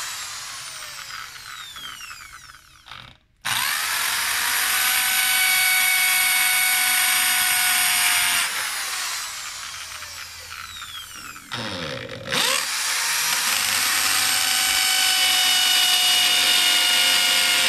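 Corded electric drill boring a hole, run in bursts on the trigger. Its whine falls away and stops for a moment about three seconds in, starts again and runs steadily for about five seconds, falls away again, then after a short blip about twelve seconds in it runs steadily once more.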